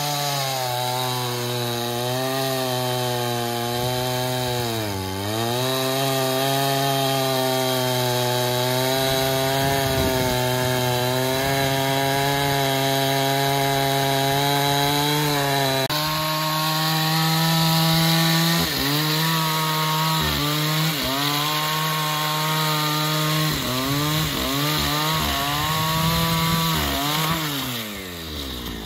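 Chainsaw engine running at high revs while cutting wood, its pitch sagging briefly several times as the bar bites under load. It winds down near the end as the throttle comes off.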